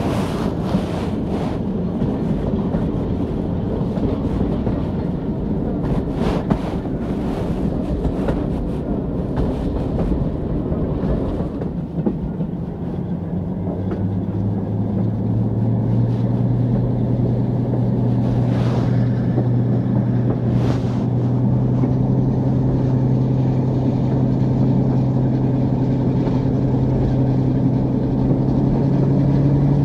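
Heard from a carriage behind a British Railways Class 42 'Warship' diesel-hydraulic locomotive with Maybach engines: wheels clicking over rail joints, then, about halfway through, a strong engine note that comes in and slowly rises in pitch as the locomotive works harder.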